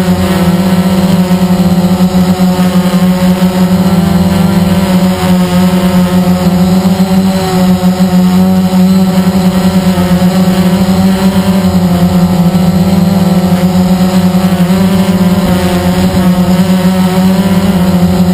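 Blade 350 QX quadcopter's electric motors and propellers buzzing steadily while it hovers, heard close up from the camera on board. The pitch wavers slightly.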